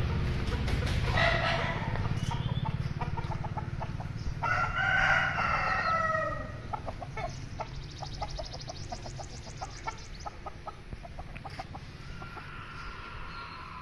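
Aseel rooster crowing, one long loud crow about four and a half seconds in after a shorter call about a second in, with chickens clucking. A low steady hum runs under the first half and stops around six seconds.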